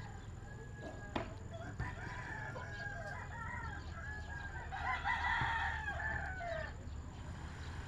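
A rooster crowing, loudest from about five seconds in, its crow dropping in pitch as it ends; a short click about a second in.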